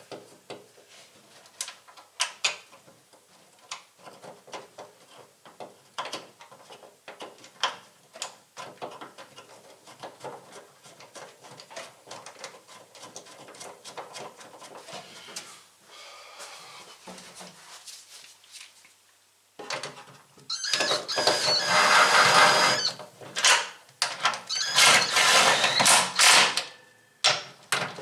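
Small metallic clicks and knocks of nuts and bolts being fitted by hand, then, from about two-thirds of the way in, loud bursts of rapid clicking from a ratchet wrench tightening the bolts.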